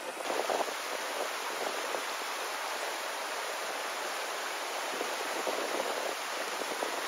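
Small mountain stream tumbling over rocks in a little cascade: a steady rush of water.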